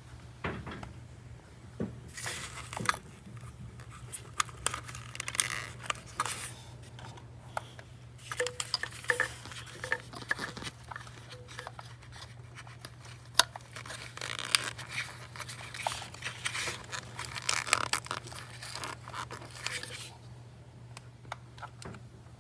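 Hand work on parts and tools: irregular clicks, scrapes and crinkling, over a steady low hum.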